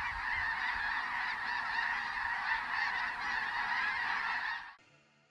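A large flock of snow geese in flight, hundreds calling at once in a dense, continuous chorus of honks. The chorus drops away sharply shortly before the end.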